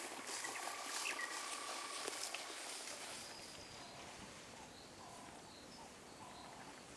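Birds calling in the bush: one long steady whistle for the first couple of seconds, then short calls repeated about once a second over a faint outdoor background.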